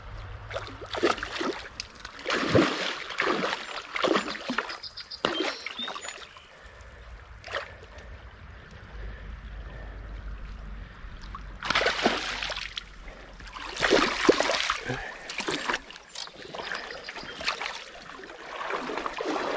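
Water splashing and sloshing in irregular bursts in a shallow creek while a hooked brown trout is fought among logs. The bursts are heaviest in the first few seconds and again from about twelve to fifteen seconds in.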